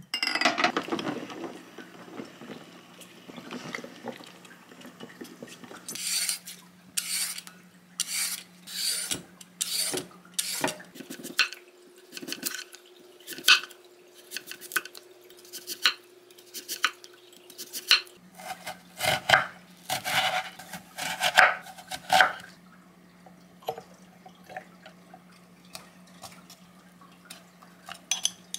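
Glass jars clinking against a pot of water. Then a kitchen knife cuts a peeled daikon radish into thin rounds on a wooden cutting board, each slice a sharp chop, about one or two a second. Near the end come softer sounds of radish slices being packed into glass jars, with a faint steady low hum underneath throughout.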